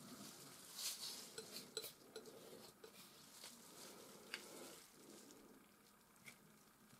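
Steel palette knife scraping and dabbing oil paint: a run of short scrapes and light clicks, busiest in the first half and thinning out later.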